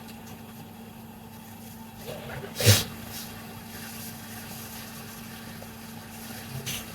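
A steady low hum, with one sharp knock about three seconds in and a fainter click near the end.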